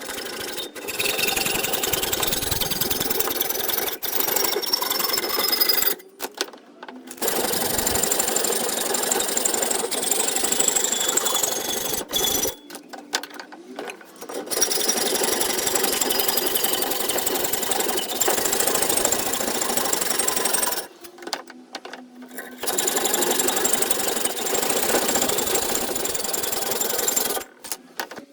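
Hand-held power tool cutting out a drilled metal bracket, running in several long stretches with short pauses between them.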